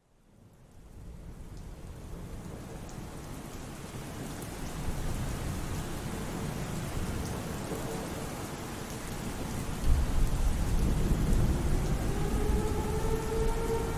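Synthesized rain and thunder ambience fading in, with heavier low thunder rumbling from about ten seconds in. Near the end, a simulated outdoor warning siren starts winding up, its tone rising over the storm.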